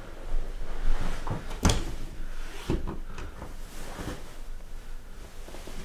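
A few knocks and rustles as a person shifts on a hospital bed under a sheet, the loudest knock about a second and a half in.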